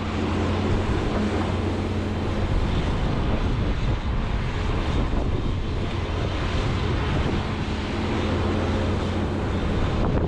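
Diesel engine of a John Deere 210G excavator running steadily while it works, with a constant low hum and a steady tone that strengthens for the first couple of seconds and again about three-quarters of the way through.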